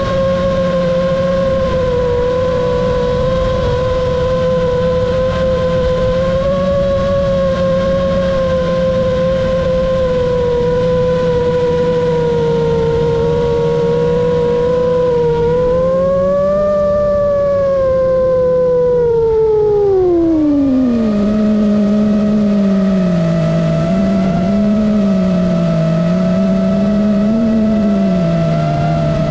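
A drone's electric motors and propellers whining at a steady pitch. About two thirds of the way through, the pitch rises briefly, then slides steeply down as the throttle drops. After that it wavers up and down at the lower pitch.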